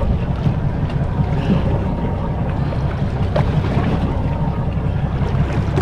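Steady low rumble of wind buffeting the microphone, with water washing against the boat's hull.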